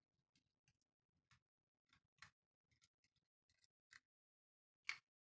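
Very faint, scattered small clicks and ticks of a small screwdriver and hard plastic parts being handled while the circuit board and top plate come off a micro RC car's plastic chassis, with one sharper click near the end.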